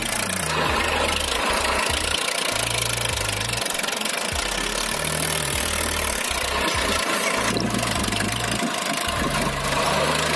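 A tractor engine running steadily at idle.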